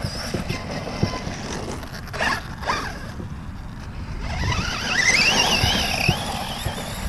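Brushless electric drive of a Reely Raptor 6S RC buggy on 4S. Its whine rises and wavers in pitch with the throttle from about four seconds in and is loudest just after five seconds. A steady low rumble runs underneath.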